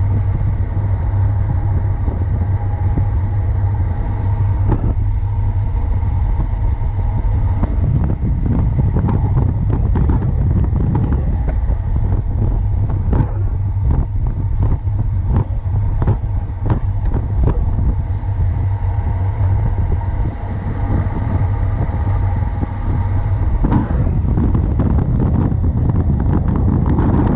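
Wind buffeting the microphone of a bike-mounted camera on a fast road-bike descent, over a steady rumble of tyres on asphalt. Through the middle of the stretch there is a run of quick rattling clicks.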